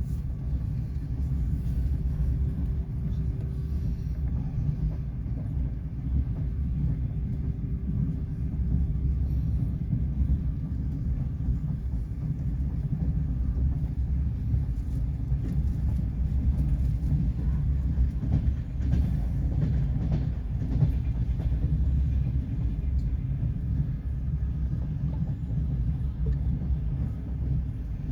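Passenger train running along the line, heard from inside a carriage: a steady low rumble with faint wheel clatter.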